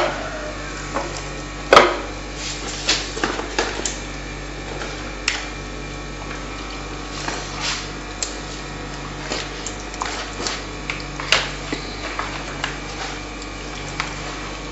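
Hands working whole fish in a thick red spice marinade in a plastic bowl: irregular wet squelches, with sharp clicks and knocks against the bowl, the loudest about two seconds in and again near eleven seconds.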